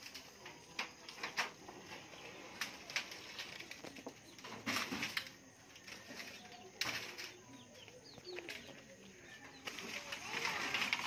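Scattered knocks, clatters and handling noise as corrugated iron roofing sheets are carried by hand, with footsteps; a louder clatter about five seconds in and another about seven seconds in.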